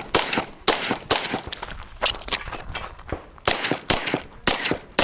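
Limcat 9mm Major open-division race pistol firing a fast string of shots, mostly in quick pairs with short pauses between target groups.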